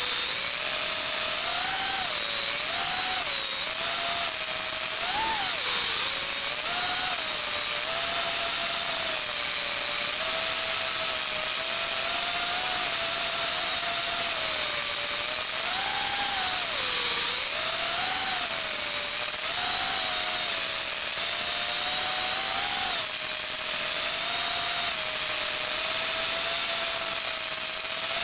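Brushless motors and propellers of an FPV mini quadcopter whining, heard close up from the quad's own onboard camera. The pitch keeps rising and falling every second or two as the throttle is worked, without a break.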